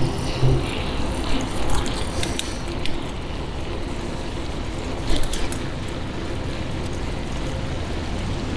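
Bicycle rolling along a paving-stone path: steady rolling noise, with scattered clicks and rattles from the bike in the first few seconds and again about five seconds in.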